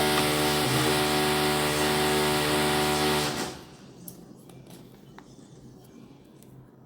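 A renovation power tool running steadily with a strong motor hum, heard through the floor from the unit below. It cuts off about three and a half seconds in, leaving a few faint knocks.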